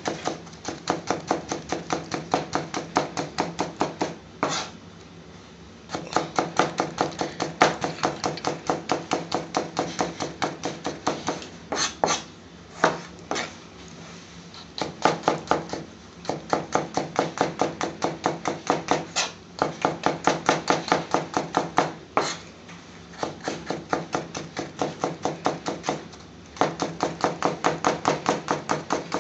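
Chef's knife chopping tomatoes on a plastic cutting board: quick, even knocks of the blade hitting the board, about four or five a second, in runs broken by a few short pauses.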